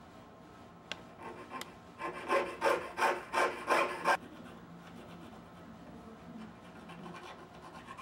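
Jeweler's saw cutting a sheet of sterling silver with quick back-and-forth strokes. After two light clicks, a louder run of about six strokes comes around the middle, then the sawing goes on more quietly.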